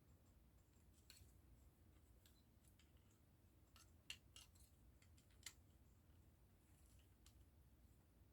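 Faint, scattered clicks of small plastic model-kit pieces being handled and pressed together, the clearest a few seconds in, over near silence.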